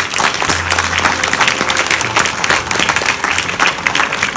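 An audience applauding: many hands clapping together at once, continuing throughout.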